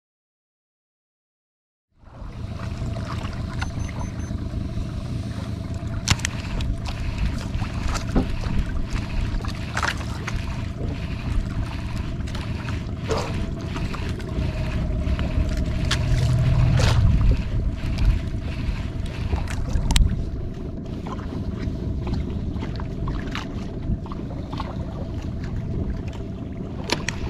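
Jukung outrigger fishing boat on open water: a steady engine hum with wind and water noise and scattered knocks against the hull. It starts about two seconds in, after a short dead silence.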